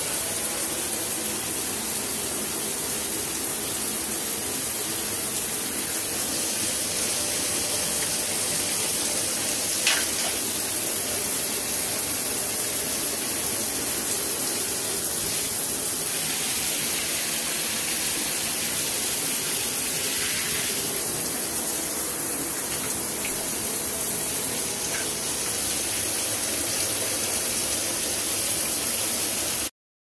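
Water spraying from a square 8-inch stainless steel rainfall shower head and falling onto the tiled shower, a steady hiss that cuts off abruptly near the end.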